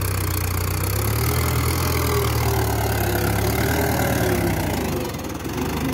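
Mahindra tractor's diesel engine running steadily as it pulls a tined cultivator through the soil, easing a little quieter near the end.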